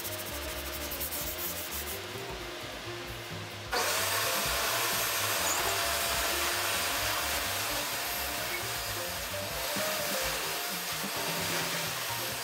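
Sandpaper rubbing by hand on a wooden drawer front, then a shop vacuum switches on suddenly about four seconds in and runs steadily as its brush nozzle clears the sanding dust from the wood.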